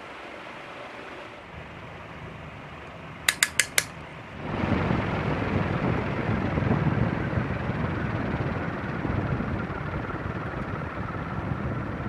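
Leslie Locke "Play it Again Sam" DF-361 ceiling fan running with a steady hum. About three and a half seconds in come four quick metallic clicks, and a second later the sound turns clearly louder, a rushing of moving air with a low rumble.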